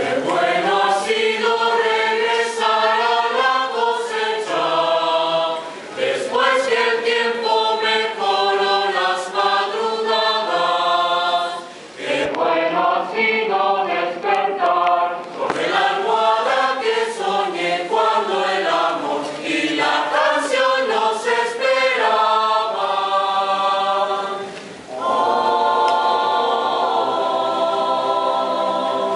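Mixed choir of men and women singing unaccompanied in several parts, in phrases separated by brief breaths, ending on a long held chord near the end.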